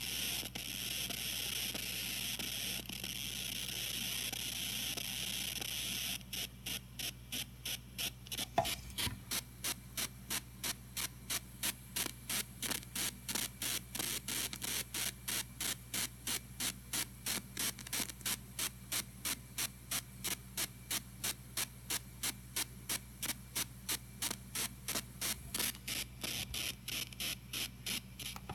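A tablet's headphone audio output carrying electrical interference while it downloads, heard through an amplified speaker: a steady hiss at first, then, about six seconds in, a fast, even pulsing buzz at about two to three pulses a second, over a low hum. The noise comes with the download and stops when it is cancelled.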